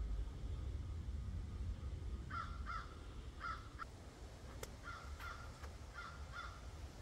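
A bird calling: about seven short calls, mostly in pairs, starting a little over two seconds in, over a steady low rumble.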